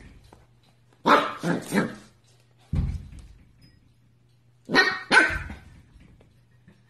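A puppy barking in short, high yelps: three quick barks about a second in and two more near five seconds. A dull low thump comes in between.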